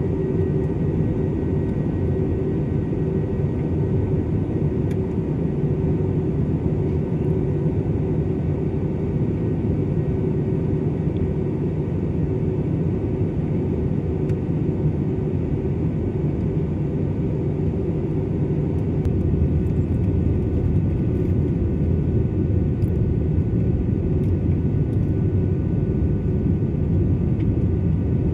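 Jet airliner engines rumbling steadily, with a faint steady whine above the rumble. The sound grows a little louder about two-thirds of the way in.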